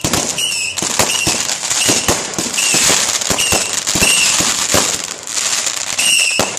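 Fireworks going off: a rapid run of sharp bangs and crackles, densest in the middle. Over it, a short high-pitched chirp repeats about twice a second.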